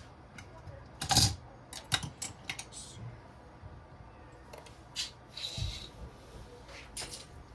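Small metal engine parts clicking and clattering as they are handled and set down while a motorcycle clutch is taken apart. There is a string of sharp clicks and knocks, loudest about a second in, and a short scrape about five and a half seconds in.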